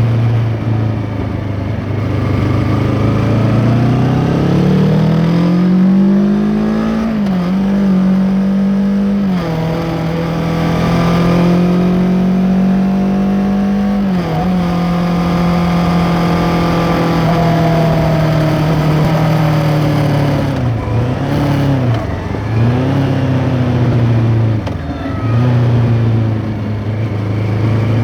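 2023 Kawasaki Ninja 650's parallel-twin engine through an Arrow X-Kone exhaust with its dB killer fitted, heard from under the seat while riding. The engine note rises under acceleration, with two brief dips at gear changes. It holds steady at cruise, then drops in several quick dips as the bike slows before settling to a lower note.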